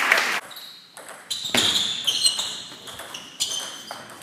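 Table tennis ball knocks: a few sharp clacks of the celluloid/plastic ball on bat and table, some with a short high ping, spaced more than a second apart. A short burst of crowd noise ends about half a second in.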